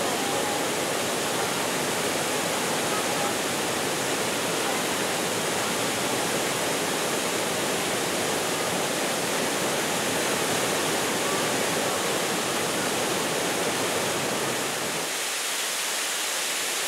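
Waterfall pouring onto rocks: a steady rush of splashing water, its deeper part dropping away near the end.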